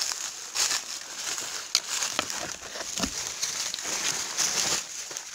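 Footsteps crunching through dry leaf litter and twigs, with branches brushing past: a run of irregular crackles and snaps.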